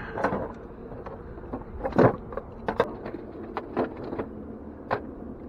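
A run of short knocks and clatters from gear and a cooler being handled on a small aluminium boat, the loudest about two seconds in, over a steady low hum.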